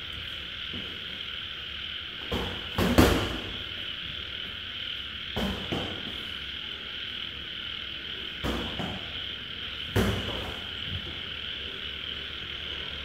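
Boxing gloves landing punches in sparring: a handful of short sharp thuds, the loudest about three seconds in and another strong one at about ten seconds. Under them runs a steady high-pitched chorus of frogs and night insects.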